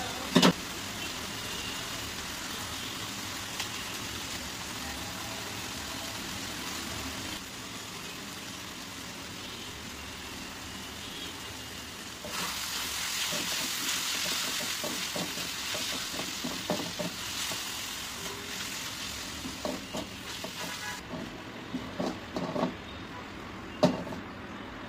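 Shredded mushrooms sizzling as they fry in a steel wok, louder from about halfway through while they are stirred with a silicone spatula. There is a sharp knock near the start, and toward the end a run of short scrapes and knocks of the spatula against the pan.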